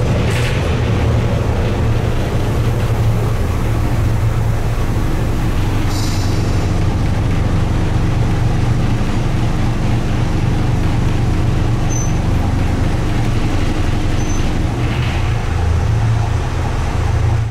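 Diesel engine of a 1990 Ikarus 260.50 city bus running steadily under way, with a short hiss about six seconds in.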